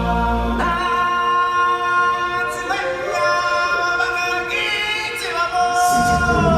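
Music: a choir of voices singing long held chords, changing chord a few times, with deeper instruments coming in near the end.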